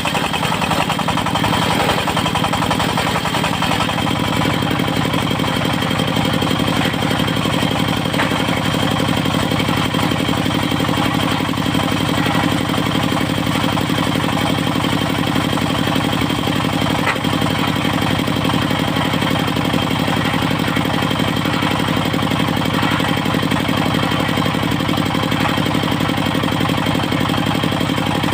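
Engine of a portable circular-saw sawmill running steadily with a fast, even chugging beat.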